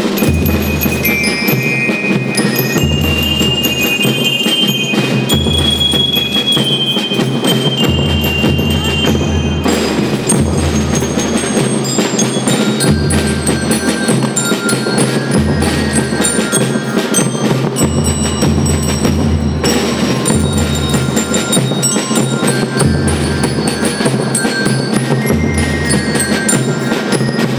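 School rhythm band playing: bell lyres ring out the melody in bright metallic notes over a steady beat of snare drums and bass drum.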